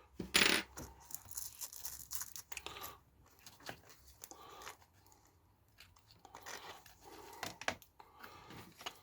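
Scattered light clicks, rattles and scrapes of the RC truck's plastic suspension arms and parts being moved by hand, the loudest about half a second in.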